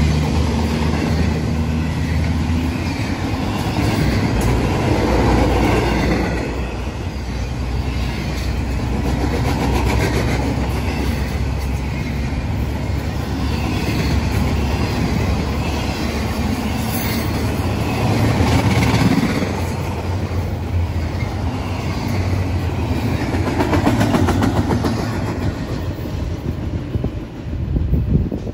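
Double-stack intermodal container train rolling steadily past, its well cars rumbling and rattling with continuous wheel clatter over the rail joints.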